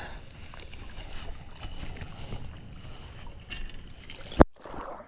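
Low, even water and wind noise on the microphone, with small scattered clicks and one sharp knock about four seconds in.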